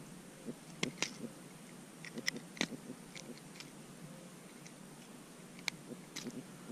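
Scattered light clicks and taps, about a dozen spread over several seconds, as a freshly caught piranha and the fishing tackle are handled in the kayak.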